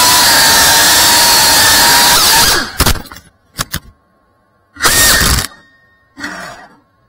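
FPV quadcopter's brushless motors and propellers whining at high throttle, their pitch wavering. About two and a half seconds in the throttle is cut, and the motors give four short bursts, the loudest about five seconds in.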